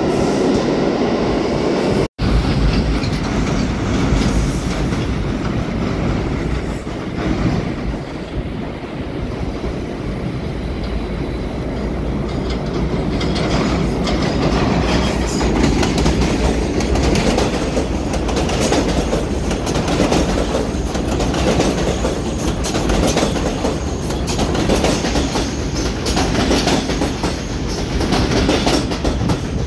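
R211 subway train running at speed, with a steady rumble of wheels on rail and some wheel squeal. A rapid clickety-clack over rail joints grows denser in the second half. The sound cuts out for a moment about two seconds in.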